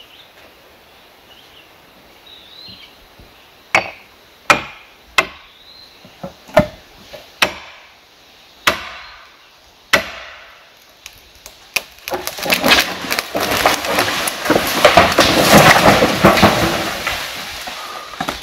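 About ten heavy blows struck at the base of a 20 m dead tree to fell it, each a sharp woody knock. After them comes a loud, dense crackling and crashing as the tree falls through the branches.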